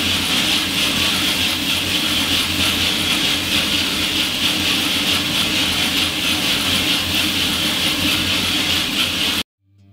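Coffee roaster's cooling tray: rotating agitator arms stir a batch of just-roasted coffee beans, a steady rattling hiss of beans over a motor hum. The sound cuts off suddenly near the end.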